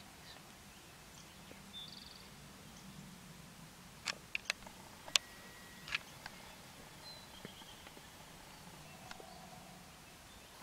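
Faint woodland ambience with a few short, thin bird whistles, broken by a cluster of sharp clicks about four to six seconds in.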